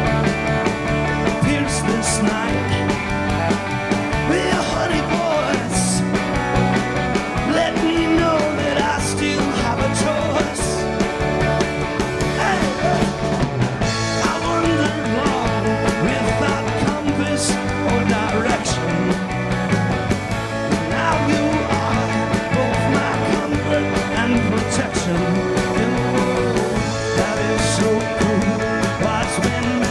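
Garage-rock band playing a song live: drums, electric guitar and bass at full volume, with occasional cymbal crashes.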